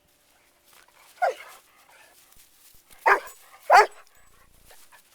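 Puppy barking: three short, high barks, one about a second in and two close together near the three- and four-second marks.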